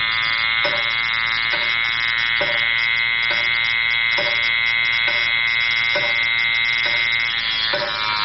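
A steady, buzzy electronic drone, rich in overtones, with a soft regular pulse a little more than once a second.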